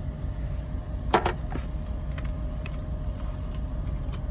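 Light clicks and rattles of servo wires and a metal ruler being handled on a board, the loudest about a second in and a few smaller ones after, over a steady low rumble.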